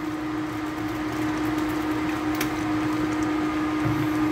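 Steady mid-pitched hum under an even hiss from the electric cooktop heating a pot of simmering soup, with a couple of faint clicks.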